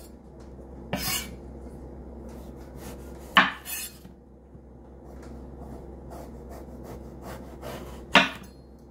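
Kitchen knife cutting through an eggplant and striking a wooden cutting board: three sharp knocks, about a second in, about three and a half seconds in and near the end.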